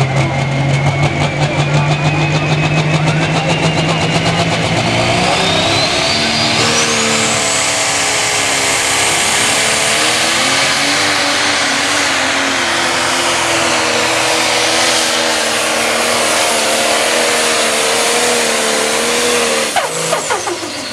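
Turbocharged diesel engine of a 10,000 lb pro stock pulling tractor at full throttle, dragging a weight-transfer sled. A high turbo whine climbs steadily over the first several seconds and then holds while the engine note wavers under load. The engine cuts back sharply near the end of the pull.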